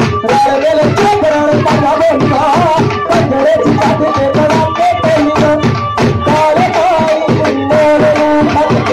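Bhangra music: a dhol beats a driving rhythm under a wavering melody line.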